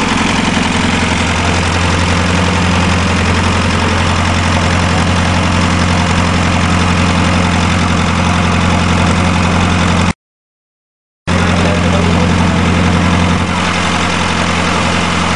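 Diesel engine of a mini tractor puller idling steadily at a low, even beat. The audio cuts out completely for about a second roughly two-thirds of the way through, then the same idle resumes.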